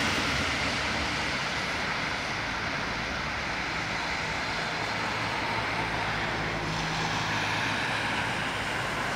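Street traffic on a rain-wet road: a Scania city bus engine fading as the bus pulls away, with steady tyre hiss from the wet road.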